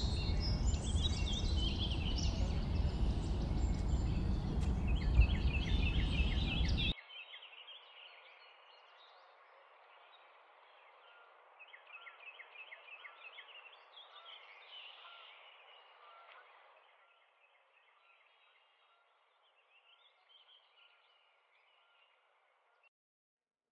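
Birds chirping over a loud, steady rush of outdoor noise that cuts off suddenly about seven seconds in. After that only faint, thin bird chirps go on, dying away near the end.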